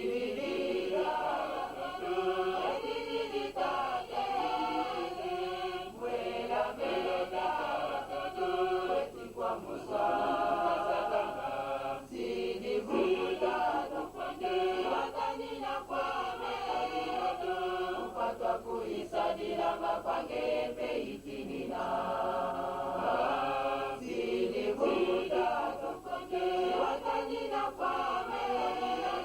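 A choir singing a hymn together in several voices; the singing cuts in suddenly at the start.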